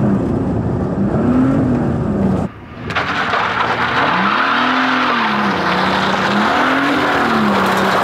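Plymouth Grand Voyager minivan engine at full throttle on a 100-horsepower nitrous shot, its revs climbing and dropping again and again, heard first inside the cabin. After a short break about two and a half seconds in, it is heard from outside, with loud tire noise from wheelspin on the dirt over the rising and falling engine.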